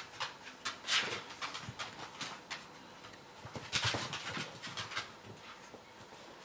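Border Terrier and puppy claws clicking and scrabbling on a tiled floor as the dogs play: quick, irregular taps, with louder flurries about a second in and again near four seconds.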